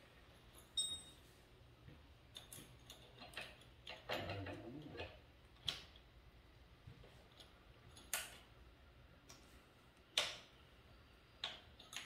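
Scattered light clicks and ticks of a bicycle pedal being turned by hand onto an e-bike's crank arm, with a short rustle about four seconds in.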